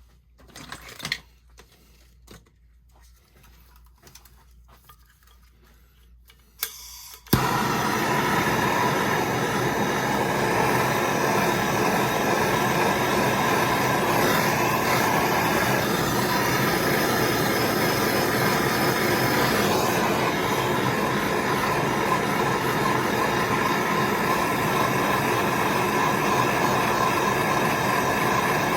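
A few faint handling clicks, then about seven seconds in a gas soldering torch is lit with a sharp pop and burns with a loud, steady rushing hiss, heating the angle valve's copper joint for soldering.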